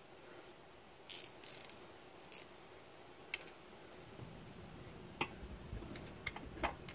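Scattered light metal clicks and clinks from an 8mm spanner on the crankshaft sensor's retaining bolt as it is fitted and worked to crack the bolt loose. A low handling rustle grows in the second half.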